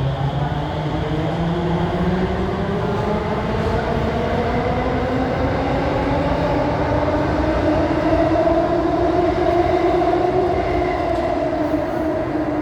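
Alstom Movia R151 metro train accelerating, its traction motors whining in several tones that rise steadily in pitch over the rumble of the running train.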